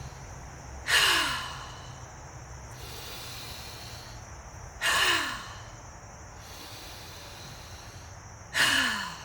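A woman taking three deep breaths, each let out as a loud sighing exhale that falls in pitch, about four seconds apart.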